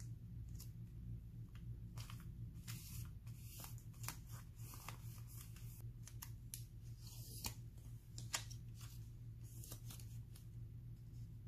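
Paper handled close to the microphone: crisp rustling and short tearing sounds as a printed picture is torn along its edge, then smoothed onto a scrapbook page.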